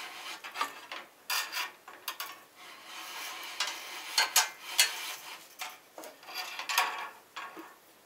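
12-gauge solid copper wire pulled in irregular strokes with pliers through a wooden stripping jig, its insulation scraping along a utility knife blade: a rasping, rubbing sound with a few sharper scrapes, quieter near the end.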